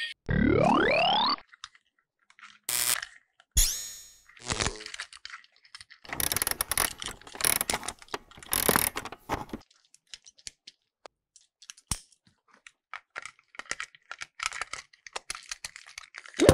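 Plastic clicking, rattling and crackling of a battery-powered plastic toy train engine being handled and worked apart, in uneven clusters of sharp clicks. A rising whooshing sound-effect glide plays in the first second.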